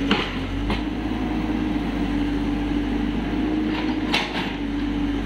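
Mini crawler excavator's engine running steadily as it digs and lifts wet clay, with a few sharp knocks from the bucket and arm, one near the start and a louder one about four seconds in.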